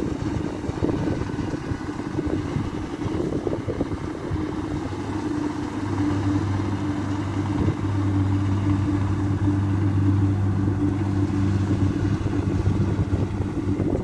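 Kubota DC-60 combine harvester's diesel engine running steadily while it cuts rice, a steady hum that grows louder about six seconds in.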